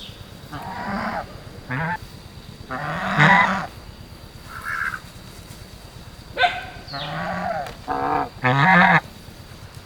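Geese honking: a run of about seven loud, harsh calls in short bursts, the loudest about three seconds in and just before the end.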